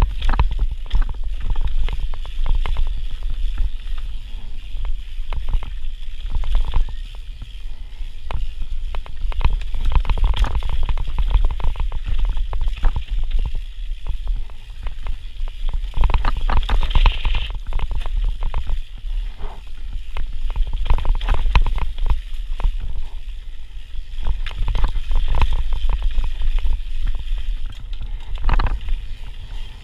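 Santa Cruz Megatower mountain bike descending a dirt trail at speed, heard through a GoPro's microphone: steady wind rumble on the mic with irregular rattles and knocks from the bike running over roots and rough ground.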